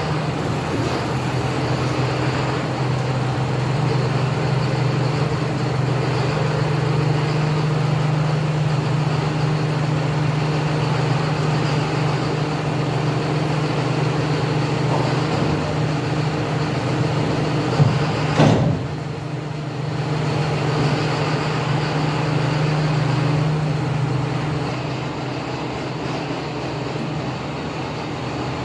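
An engine running steadily, with one sharp clunk about two-thirds of the way through.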